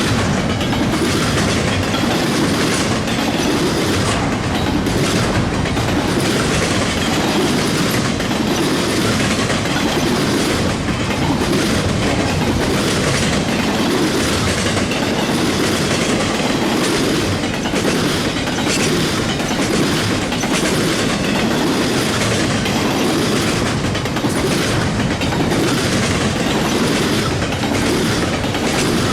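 Freight cars of a long mixed freight train rolling past, a steady rumble with the wheels clicking over rail joints.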